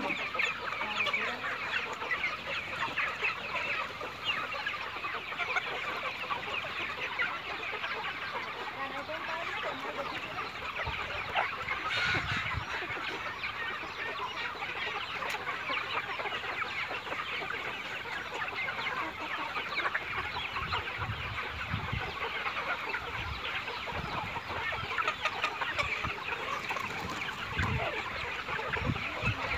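A large flock of chickens clucking continuously, many birds calling over one another.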